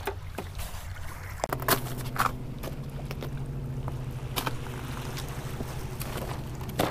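A steady low engine hum sets in about a second and a half in and runs on, with a few sharp knocks and clatters of fishing gear (a bag and a plastic cooler) being set down and handled on shoreline rocks.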